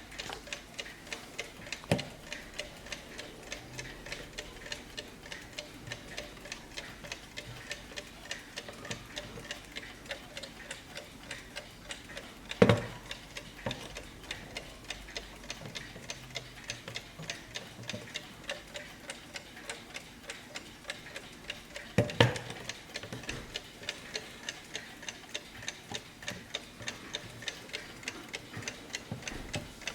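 Restored 1910s Junghans alarm mantel clock ticking steadily, about three ticks a second. Three louder knocks come through the ticking: one near the start, one about halfway and one about two-thirds through.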